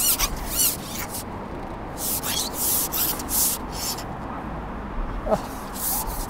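A carbon fishing pole being shipped out by hand, sliding and rubbing in a series of short hissing strokes. Wind rumbles on the microphone underneath.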